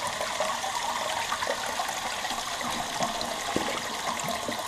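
Toilet tank refilling after a flush: water rushing steadily out of the float-cup fill valve and splashing into the tank, a normal, quick refill.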